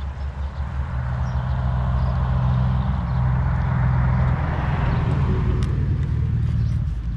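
A road vehicle passing by: a low engine hum and tyre noise that build up to about four seconds in, then fade away near the end.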